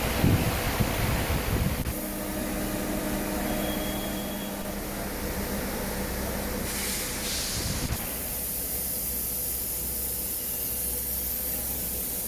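5-axis CNC router running, a steady hum under an even hiss, with a short burst of louder high hiss about seven seconds in.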